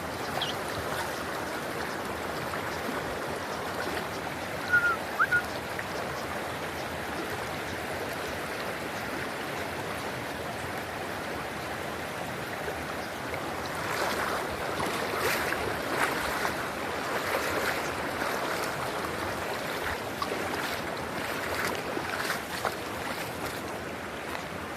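Water flowing steadily, like a stream, as an even rushing noise. Two or three short, sharp high sounds stand out about five seconds in, and the water grows more uneven and splashy in the second half.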